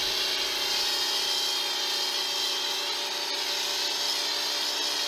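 Portland 1750 electric pressure washer running steadily under load, a motor-and-pump hum with the hiss of its stock foam gun spraying soapy foam.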